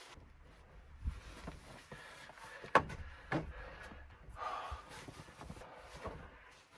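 Scattered light knocks and rustling from someone moving about inside a pickup truck's camper topper, with one sharp knock a little under three seconds in and a short rustle about halfway through.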